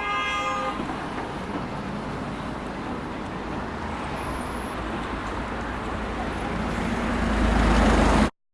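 Road traffic noise, a steady wash of passing vehicles, with a short pitched tone at the very start. A low rumble swells near the end as a vehicle passes close, then the sound cuts off abruptly.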